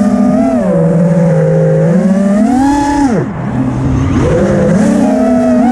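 FPV quadcopter's brushless motors and propellers whining, the pitch rising and falling with the throttle. About three seconds in the whine drops away sharply as the throttle is cut, then builds again.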